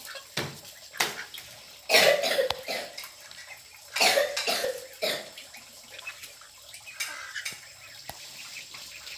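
Domestic ducks quacking: several short harsh bursts of quacks, the loudest about two and four seconds in.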